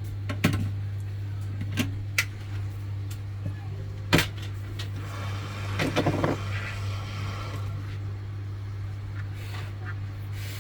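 Steady low hum with scattered sharp clicks and taps, and a short rattling cluster of taps near the middle: small tools and parts being handled on an electronics repair bench.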